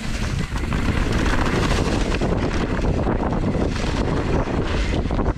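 Heavy wind buffeting the microphone during a fast descent, a dense low rumble with constant rattling and clicking from the ride.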